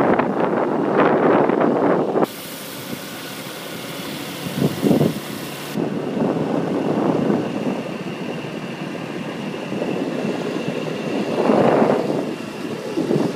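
Wind buffeting the microphone from a moving vehicle, in uneven gusts over the vehicle's road noise.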